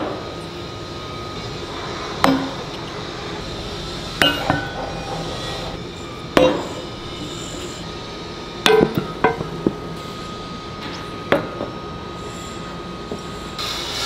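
Sledgehammer striking freshly cast iron manhole castings in foundry sand to knock off the risers: a series of sharp metallic clanks with brief ringing, a few seconds apart, with a quick run of four blows about two-thirds of the way through.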